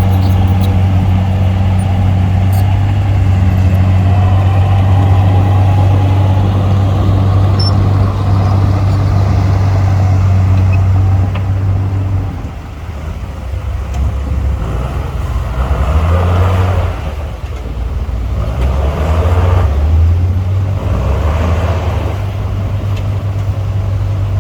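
Heavy diesel engine running steadily under load, dropping back at about twelve seconds, then revving up in three surges.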